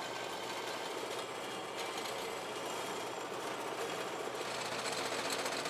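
Vertical bandsaw cutting through a metal plate: a steady run of blade noise with a fine, rapid chatter as the teeth bite the metal.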